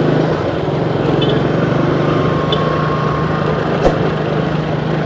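A road vehicle's engine running steadily under road and wind noise, heard from the moving vehicle; one sharp click about four seconds in.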